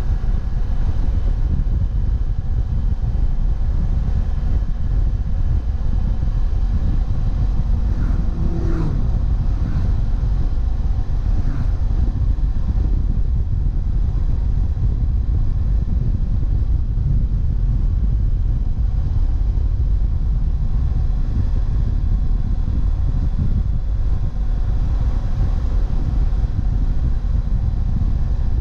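BMW F700GS's parallel-twin engine running at cruising speed, mixed with a steady low rumble of wind and road noise on the motorcycle's camera microphone.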